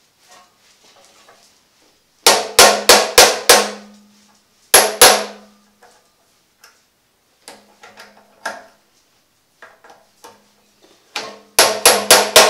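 Hammer blows on a screwdriver seated in the brush holder of a vacuum cleaner's motor, sharp metallic strikes with a brief ring: a quick run of about five, a single blow, a few light knocks, then another run of about five near the end. The strikes are to free the brush holder and get at the carbon brushes.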